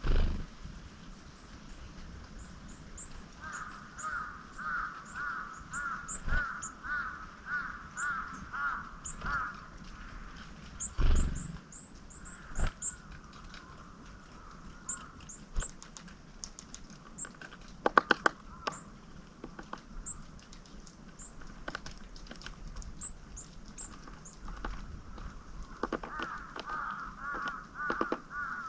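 A crow cawing in quick runs of repeated calls, about two a second, over scattered high, thin chirps of small songbirds. A dull thump comes about eleven seconds in and a few sharp clicks at about eighteen seconds.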